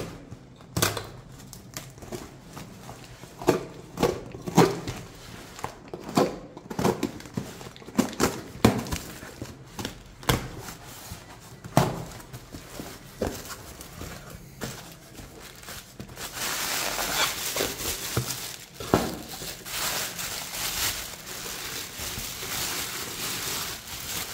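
Hands tearing open a taped cardboard shipping box: a run of short rips and knocks of cardboard and tape. About two-thirds of the way through, this gives way to steady crinkling of plastic packing wrap as the boxed item is pulled free.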